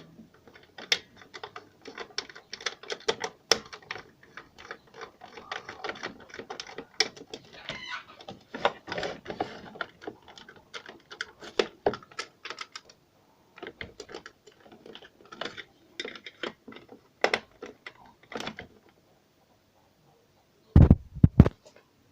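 Small plastic and metal parts being handled during a repair of a car stereo's cassette tape mechanism: irregular clicks, taps and light rattles, with a few heavy thumps near the end.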